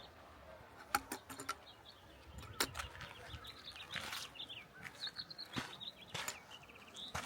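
Small birds chirping: short high calls and sweeps, with a quick trill near the end. Footsteps on the trail give scattered sharp clicks.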